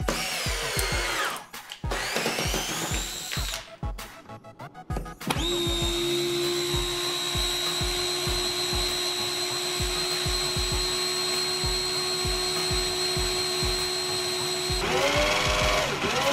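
12-volt cordless drill/drivers whining up and down in pitch as they drive screws into a wooden board. Then a DeWalt DCD710 12V drill runs free at a steady high whine with its trigger held down. Near the end the whine wavers and drops as the battery runs flat. Background music with a steady beat plays throughout.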